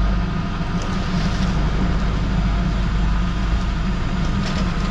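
Steady low drone of the fishing boat's on-board machinery running, with a few faint ticks over it.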